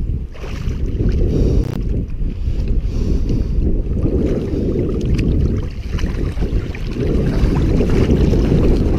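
Wind rumbling and buffeting on the microphone at sea, a loud low rumble that eases briefly at the start and again near the middle, with a few faint ticks.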